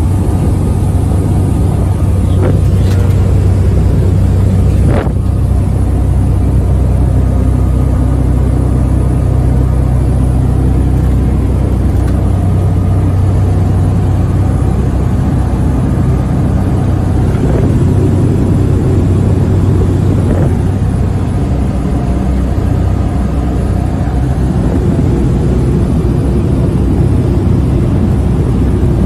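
Engine and propeller of a high-wing light passenger aircraft droning steadily, heard from inside the cabin, with a few short knocks in the first five seconds.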